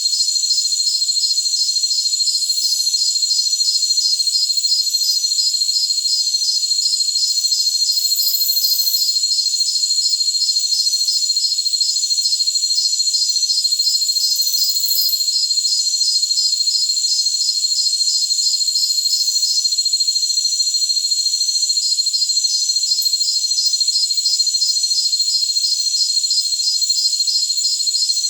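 Jungle crickets trilling in chorus: a steady high-pitched ringing with a fast, regular pulsing chirp over it. The chirping drops out for a couple of seconds about two-thirds of the way through, then resumes.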